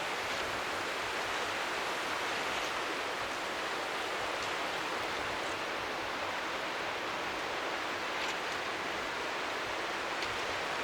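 Steady rushing noise of strong wind by the sea, with waves lapping faintly underneath, an even white-noise-like wash with no change in level.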